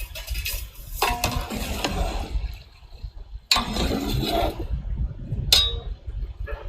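Metal cooking utensils striking, clinking and scraping against a large cooking pot, in several separate knocks with scraping between them.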